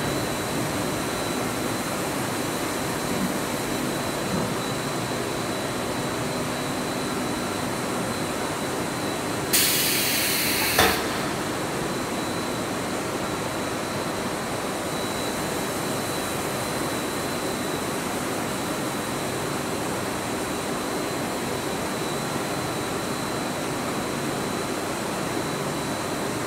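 Steady running noise of a Zhongyun ZC-300H corrugated pipe extrusion line in operation, with a thin high tone over it. About ten seconds in, a hiss lasting just over a second ends in a sharp click.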